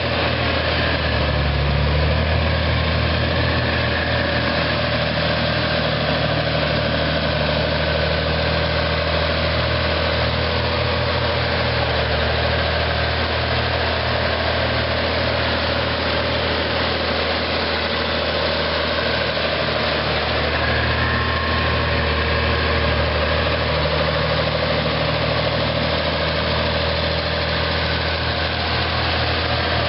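Oliver 1850 tractor's six-cylinder propane engine running at a steady low speed as the tractor drives slowly, with no revving.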